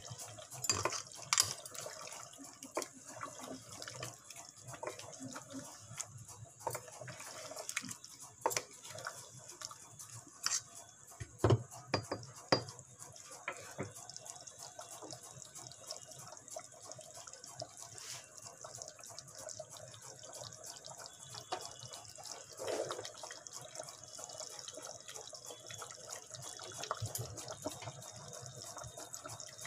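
Thick chicken curry gravy with cream simmering in a pot on the stove, bubbling with irregular soft pops and plops.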